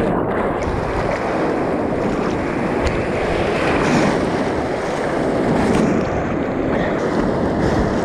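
Rushing white water of the Nile's rapids, a steady dense rush, with wind buffeting the microphone.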